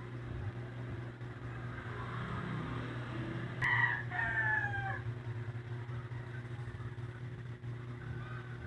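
A rooster crowing once about four seconds in, a short note followed by a longer, slightly falling one, over a steady low hum.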